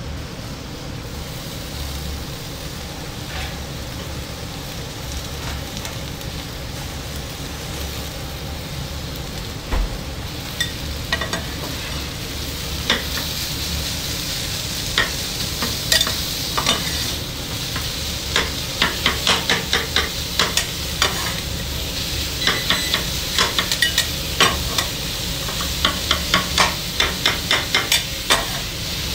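Mushrooms, shaved meat and diced peppers sizzling on a flat-top steel griddle, with a metal spatula chopping and scraping against the plate. The spatula strikes come a few at a time at first, then as rapid clacking, several a second, through the second half.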